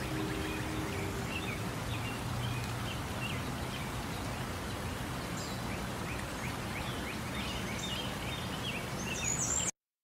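Outdoor nature ambience: a steady rush of water with small birds chirping throughout. It cuts off suddenly near the end.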